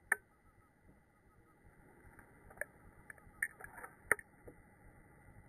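Sharp metallic clicks from a Ruger Single Six revolver as it is unloaded: the cylinder is turned chamber by chamber and the spring-loaded ejector rod pushes out the spent .22 casings. There is one click right at the start, a few more from about two and a half seconds in, and a cluster around four seconds, with the loudest click just after four seconds.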